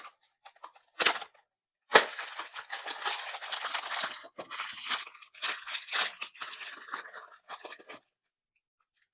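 Blind box packaging being torn open by hand: a couple of sharp clicks, then about six seconds of continuous tearing and crinkling that stops near the end.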